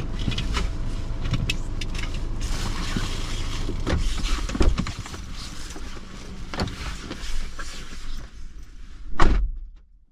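Someone moving about inside a parked car: rustling and clicks over a steady low car hum that drops away about five seconds in, then one heavy thump near the end before the sound cuts out.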